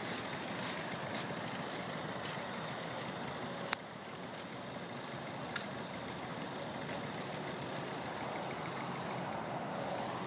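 A motorcycle-based three-wheeler's engine idling steadily, with two sharp clicks: one a little under four seconds in and another about two seconds later.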